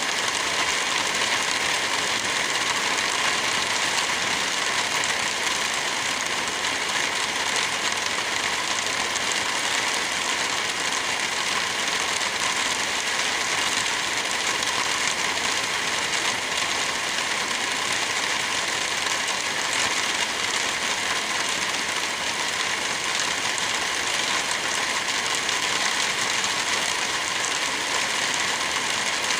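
Wind blowing through a forest with light rain falling, an even, steady hiss with no gusts or single drops standing out.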